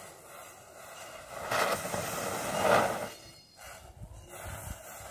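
Matchstick heads flaring up one after another along a domino-style chain, a fizzing hiss that swells for about a second and a half, loudest a little before the middle, then dies down. No firecracker explodes.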